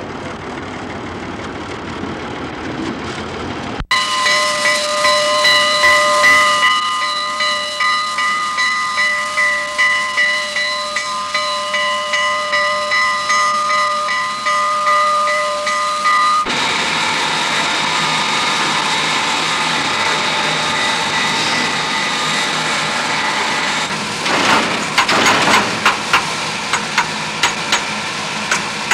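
Southern Pacific 4449, a GS-4 steam locomotive, standing with steam hissing and a steady ringing tone that pulses about one and a half times a second. About 4 s in, this follows a few seconds of low train rumble. After a cut the hiss runs steadier, with a run of sharp clicks near the end.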